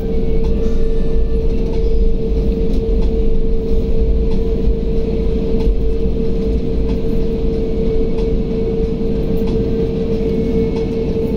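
Cabin noise inside a narrow-body jet airliner taxiing: the engines and rolling wheels make a steady low rumble with a steady hum over it.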